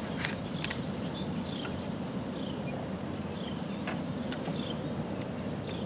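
Outdoor river ambience: a bird giving short, high, falling chirps again and again over a steady low rumble, with a few sharp clicks.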